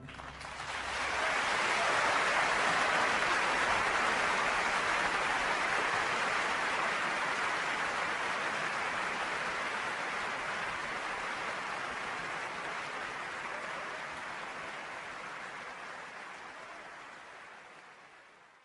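Audience applause, a dense even clapping that swells about a second in and then fades away gradually towards the end.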